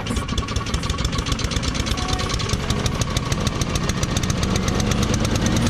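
Small lawn mower engine running with a fast, even putter, speeding up and getting louder over the last couple of seconds.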